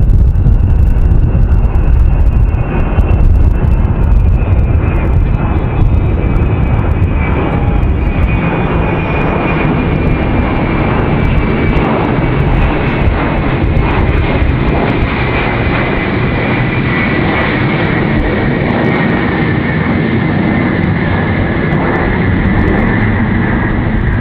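Ilyushin Il-76 four-engine turbofan jet flying overhead: steady jet engine noise with a high whine that slowly falls in pitch, the deep rumble strongest in the first few seconds.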